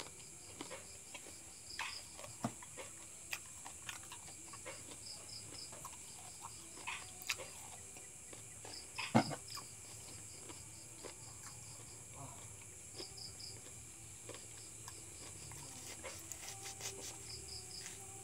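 Night insects: a steady high drone with crickets chirping in short repeated groups. Scattered small clicks and knocks of handling run over it, one louder knock about nine seconds in and a run of small clicks near the end as a lemon is cut and peeled with a knife.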